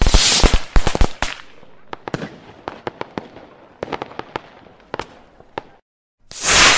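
Intro sound effects: a rapid string of sharp bangs and cracks, then scattered single cracks, a brief silence, and a loud swell of noise near the end.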